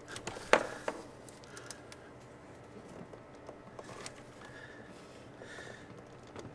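Scattered small clicks and light rubbing as hose and fittings are handled, with one sharp click about half a second in.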